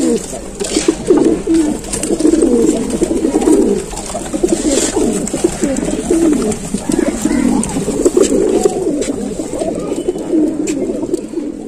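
A flock of domestic pigeons cooing together in a crowded loft, many overlapping low coos forming a continuous chorus.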